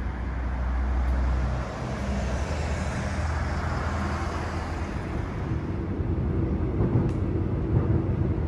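Street traffic noise, with a vehicle's sound swelling and fading about halfway in. From about five or six seconds in, the steady running hum of a Line 1 electric multiple-unit train, heard from inside the passenger car.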